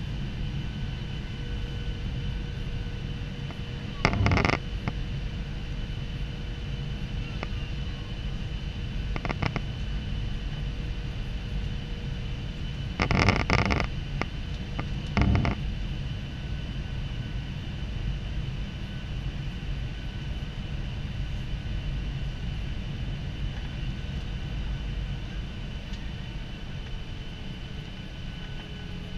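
Cabin sound of a Ryanair Boeing 737-800 on final approach: a steady drone of engines and airflow with fixed whining engine tones over it. A few brief, louder noises break through, the biggest about four and thirteen seconds in.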